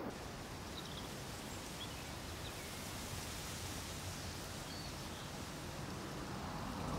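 Soft, steady outdoor ambience of wind rustling through tall reeds.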